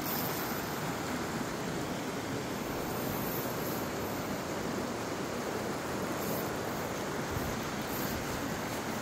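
Steady rushing of a fast river running through a riffle, an even wash of water noise.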